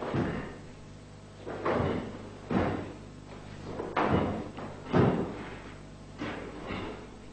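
A karate kata being performed: about seven sharp swishes and thuds, a second or so apart, from the gi snapping with each strike and block and from bare feet stamping and sliding on a wooden floor. A faint steady hum runs underneath.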